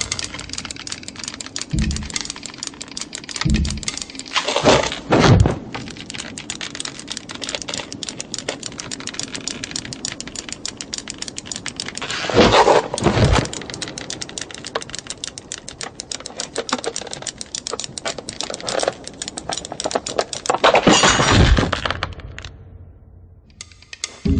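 Knitting needles clicking very fast and continuously, like rapid typing, with a few louder rushes of noise about five, thirteen and twenty-one seconds in. The clicking stops shortly before the end.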